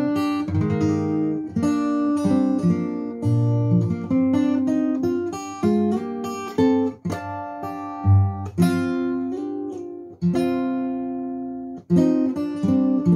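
Instrumental background music: acoustic guitar picking single notes and chords that ring out and fade, with short pauses between phrases.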